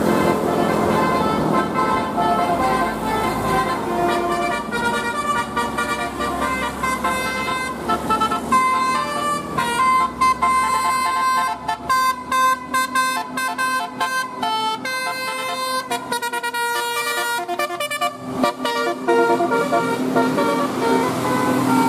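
Bus 'telolet' horn: a set of multi-tone air horns playing a tune, with the notes changing pitch in steps. A choppy run of short, quick blasts comes in the middle.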